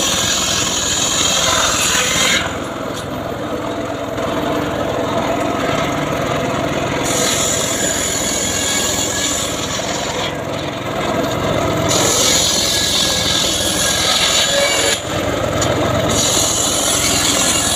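Homemade srekel sawing rig cutting through a log, a loud continuous machine-and-saw noise. Its high hiss drops away for a few seconds twice and again briefly near the end as the cut changes.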